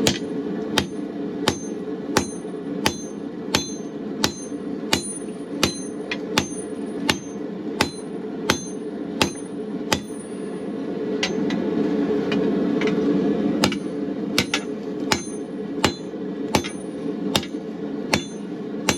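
Hand hammer striking hot steel on an anvil at a steady pace, about one and a half blows a second, each with a bright ring. The blows pause for a few seconds about halfway through, then resume. Under them, the steady running of a gas forge burner.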